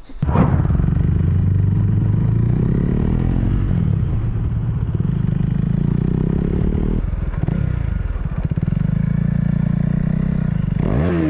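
Motorcycle engine running under the rider at low road speed, its pitch rising and falling with the throttle, with a brief drop about seven seconds in and the revs climbing near the end.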